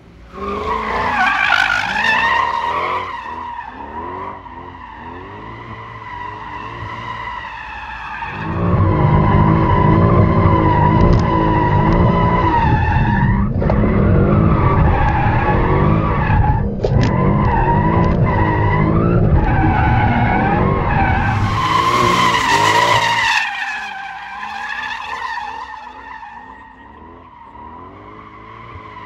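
Mercedes-Benz C63 AMG 507 Edition's 6.2-litre V8 revving up and down in a drift while the rear tyres squeal steadily. A long, louder and deeper stretch of engine noise runs through the middle and fades out after about 23 seconds.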